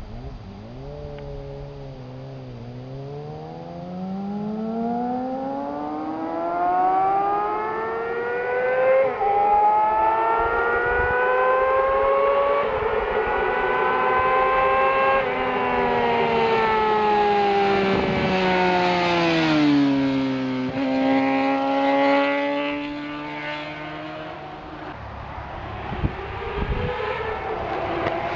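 Suzuki GSX-R 600 inline-four sport-bike engine at racing speed: it climbs steadily in pitch, with brief breaks at gear changes, then the pitch falls as it goes past and away. Another engine note rises again near the end.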